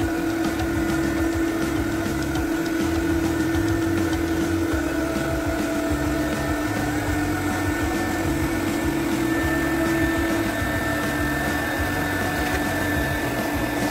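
Upright carpet extractor running steadily as it is pushed over carpet, its vacuum motor giving a constant hum.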